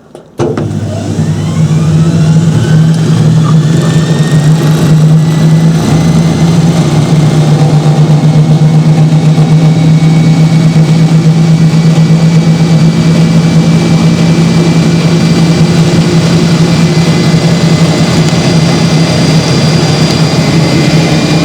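A 1968 Hoover Spinarinse 3012A spin dryer starting up. Its drum spins up with a rising whine over the first few seconds, then runs loud and steady with a strong low hum.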